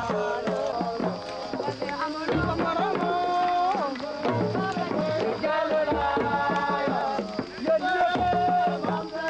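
Music: a wavering melody over drums, with a deep beat about every two seconds.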